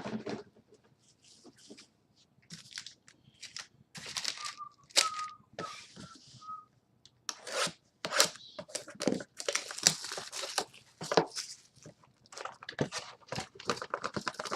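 Trading-card box packaging being torn open: wrapping crinkling and tearing in irregular rustles and scrapes, with a few brief squeaks a little past the middle.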